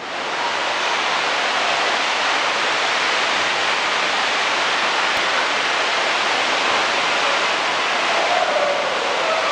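Steady rush of running water in an indoor water-park hall, from water streaming down open water slides and feeding the pools.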